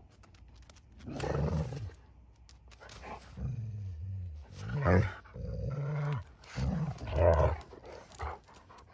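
Alaskan malamutes play-fighting, growling and grumbling in a string of short low bouts that rise and fall in pitch, the loudest about halfway through and again near the end.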